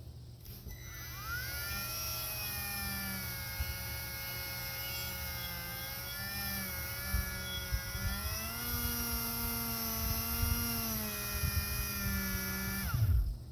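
Dremel rotary tool fitted with a small buffing wheel, polishing a steel axe head with aluminum polish. Its high whine rises as it spins up about a second in, wavers in pitch as the wheel is pressed against the metal, and falls away as it winds down near the end.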